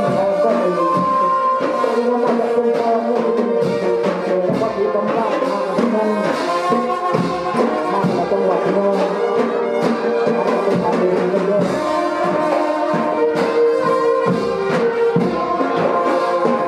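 Brass band playing: trumpets and trombones hold melody lines over drum beats.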